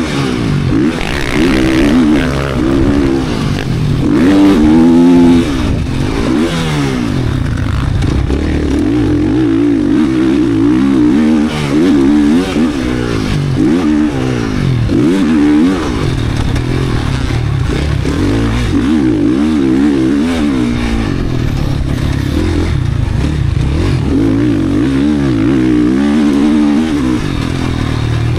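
GasGas 450 motocross bike's four-stroke single-cylinder race engine being ridden hard, its pitch sweeping up under throttle and dropping back over and over as it revs, shifts and shuts off.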